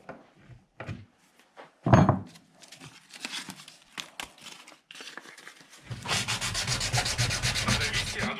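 Sandpaper rubbing on wood: scattered short scrapes, then quick, even back-and-forth strokes from about six seconds in. A single sharp knock, the loudest sound, comes about two seconds in.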